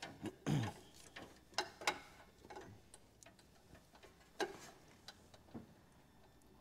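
Scattered light clicks and knocks of hand tools on a car engine, irregularly spaced, while the leak-down tester is moved to the next cylinder.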